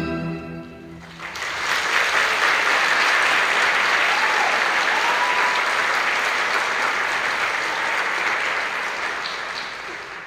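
Audience applauding, starting about a second in as the orchestral music ends and dying away near the end.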